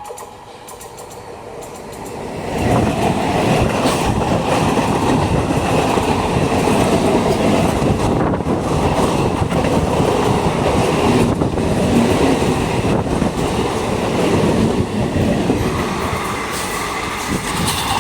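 A train passing at speed: the rumble swells about two seconds in, then wheels clatter steadily over the rail joints as the coaches go by, easing off near the end.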